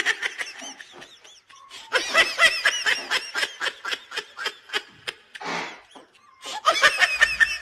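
A woman laughing in quick, high-pitched bursts, in three bouts with short pauses between them.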